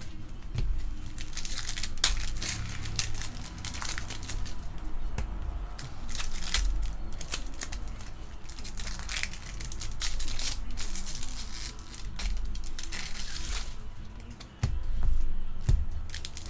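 Foil trading-card pack wrappers crinkling and tearing as packs are ripped open, with cards handled and shuffled in the hands. Near the end, a few low knocks as cards are set down on the table.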